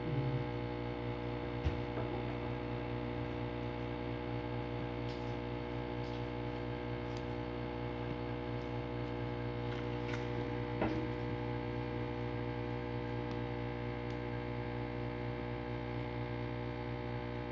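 A steady electrical hum with many overtones, unchanging throughout, with a few faint clicks from small parts being handled.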